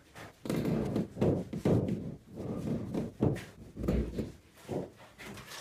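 A run of knocks and scrapes, then a heavier low thud about four seconds in: a rubber mallet tapping an aerated concrete block down into its mortar bed while laying a partition wall.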